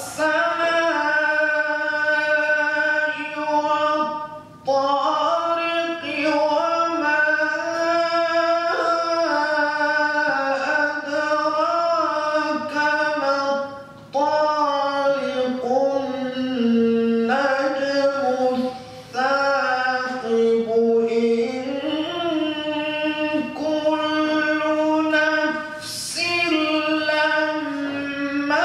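A solo male reciter chanting the Quran in the melodic, drawn-out mujawwad style: one voice holding long ornamented notes that glide up and down, broken by short breath pauses about four times.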